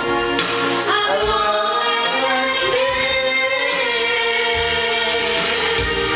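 Karaoke: voices singing into a microphone over a backing track, with long held notes.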